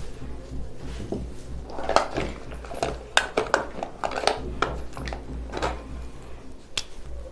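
Scratching strokes and sharp little clicks of a pen drawing a diagram by hand, irregular and bunched together, over a steady low electrical hum.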